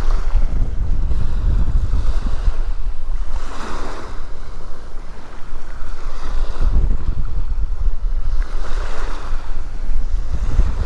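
Wind noise on the microphone over small surf lapping onto a sandy beach. A soft wash of a wave comes in every few seconds.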